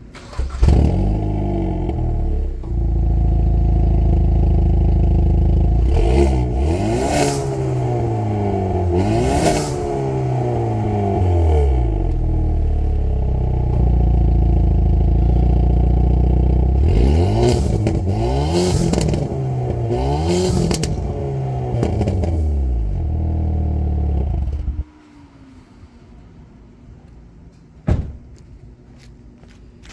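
Exhaust of a 2021 Hyundai Veloster N's turbocharged 2.0-litre four-cylinder with an aftermarket SXTH Element downpipe, heard at the tailpipe. It runs steadily and is revved in two sets of rising and falling blips, the second set in N mode, with sharp crackling pops as the revs rise and fall. It cuts off about 25 seconds in.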